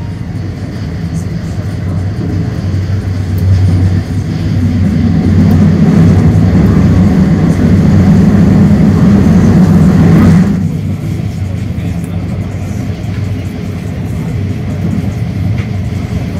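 Passenger train running at speed, heard from inside the carriage: a steady rumble and rushing noise that swells louder for several seconds in the middle and drops off sharply about ten seconds in.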